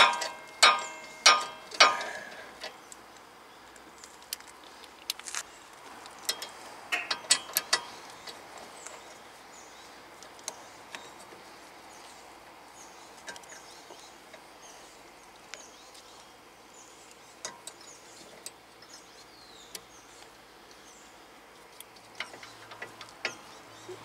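Hand tools clinking and clicking against a rear brake caliper as its bolts are worked out: four loud ringing metal clinks in the first two seconds, another quick cluster about seven seconds in, then scattered light clicks.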